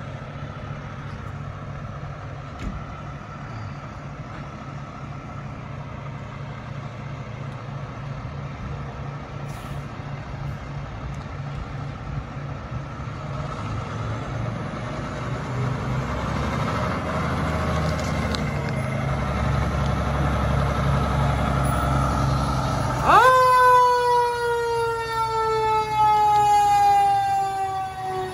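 Fire engine coming slowly closer, its engine rumble growing louder. Near the end its siren starts with a sharp upward sweep and then falls slowly in pitch as the truck passes close by.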